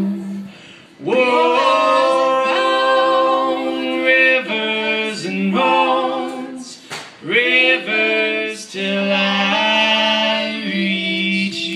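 Several voices singing a cappella in harmony, holding long wordless notes, with two brief breaks: one about a second in and one around seven seconds.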